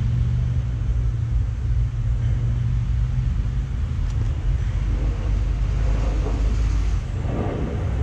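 A steady low rumble, with faint handling noises near the end.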